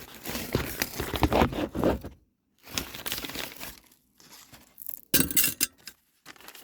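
Crinkling and rustling of packaging as loose HVAC fittings and parts are handled, with light clinks, in irregular bursts: a long stretch at first, a pause, then a short sharp burst about five seconds in.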